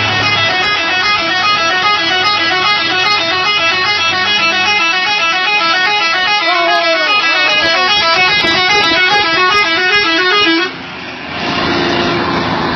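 Log truck's horn sounding continuously, a multi-tone horn cycling rapidly up and down in a repeating pattern. It cuts off about ten and a half seconds in, leaving the truck's engine running.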